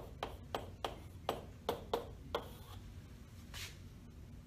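Chalk tapping and scraping on a chalkboard in about seven short, quick strokes as figures are written.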